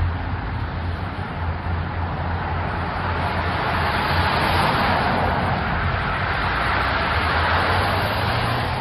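Steady rush of heavy rain and running water that swells a little midway, with a low, steady vehicle engine hum underneath.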